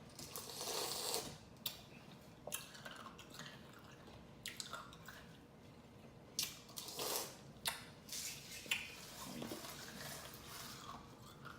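Crushed ice soaked in soda being eaten: scattered wet crunches and clicks, with a short hiss at the start.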